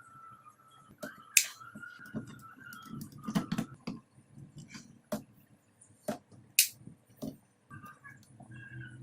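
Scattered sharp clicks and knocks from handling the opened laptop charger and plugging in its cables to test it after the resoldering repair, with a faint steady high tone underneath.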